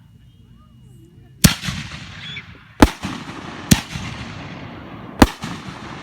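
Aerial firework shells bursting overhead: four loud bangs, about 1.4, 0.9 and 1.5 seconds apart, each followed by a long echoing rumble.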